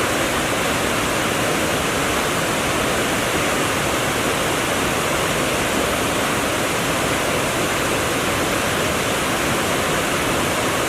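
Chalakudy River rushing over rocks: a loud, steady, even rush of water with no change throughout.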